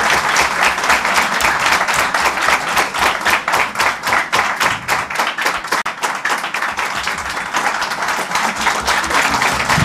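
An audience applauding, many hands clapping in a dense, steady run.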